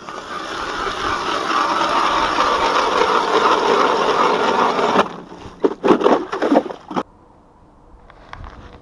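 Hand-cranked ice auger drilling through pond ice: a steady scraping of the blades cutting ice that grows louder, then a few louder irregular scraping strokes, cutting off suddenly about seven seconds in.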